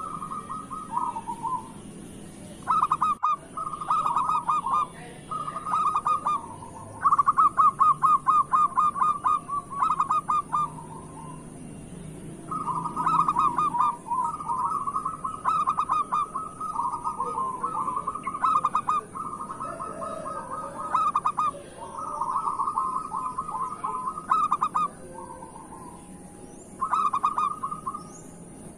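Zebra dove (perkutut) singing its staccato cooing song: rapid trills of short coos, phrase after phrase with brief pauses. A steady faint high whine runs underneath.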